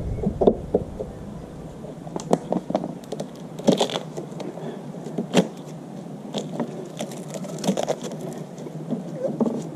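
Side cutters snipping and tearing at thick duct tape wrapped around a push mower's metal handle: scattered sharp clicks and snips at irregular intervals.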